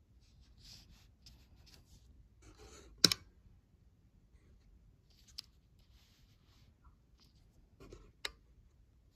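Faint rustling of a paper sheet being handled on a desk, with one sharp click about three seconds in and two smaller clicks later.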